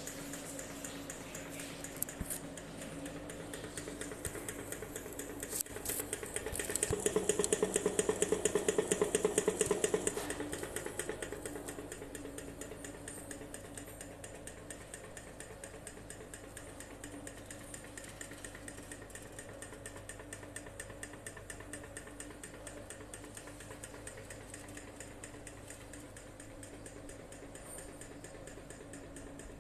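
Antique kerosene-burner-driven fan running: its small piston engine makes a rapid, steady mechanical ticking as the blades spin. The ticking swells louder for a few seconds about a quarter of the way in, then settles back.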